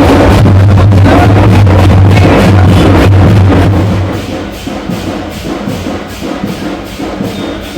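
Loud music with drum beats. A heavy low drone fills the first half and falls away a little past halfway, leaving the beat more exposed.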